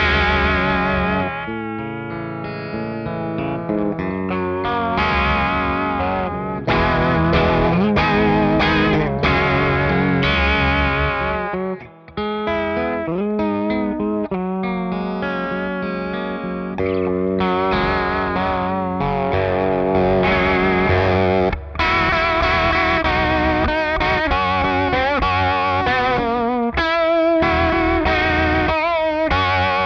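Hagstrom Super Swede electric guitar played through an EarthQuaker Devices Aqueduct vibrato pedal in envelope rate mode and a Fender Deluxe Reverb amp. The notes warble in pitch, with the vibrato speed following how hard the strings are picked. There is a brief break about twelve seconds in.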